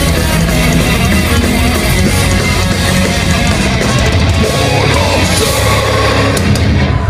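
Melodic death metal band playing live at full volume: heavy distorted guitars over a thick low end, loud and steady. The band stops abruptly at the very end as the song finishes.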